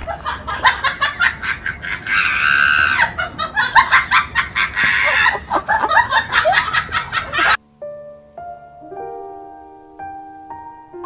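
Background music: a busy track with a fast, clicking beat that cuts off abruptly about seven and a half seconds in, followed by soft, slow piano notes.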